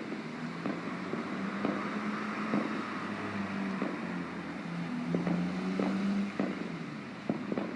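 Distant fireworks going off, a dozen or so short sharp bangs at irregular intervals, over a steady low mechanical hum and wind noise on the microphone.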